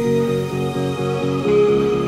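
Background music: a quick, even run of repeated notes over held tones.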